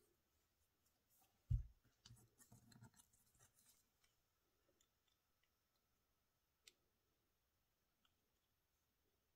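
Faint tabletop handling sounds as a large paperclip is worked through a flattened bottle-cap flower: a low thump about a second and a half in, then a couple of seconds of light rustling and small clicks, and one sharp click later on.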